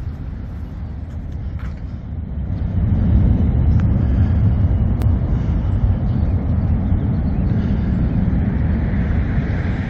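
Low, steady rumble of road traffic, growing louder about three seconds in and holding there.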